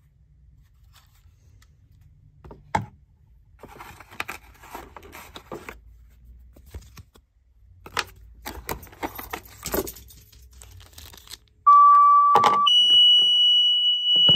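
Cardboard packaging and a plastic pager being handled, with rustling and a few clicks. Then a two-tone page comes through a Unication G5 pager's speaker: one steady tone for about a second, then a higher steady tone that holds for about three seconds. This is the sequential two-tone alert that opens a fire or EMS dispatch.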